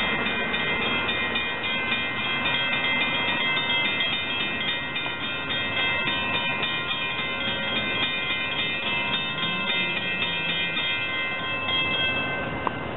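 A bell rings rapidly and steadily, then stops shortly before the end, over the steady rumble of an approaching electric commuter train.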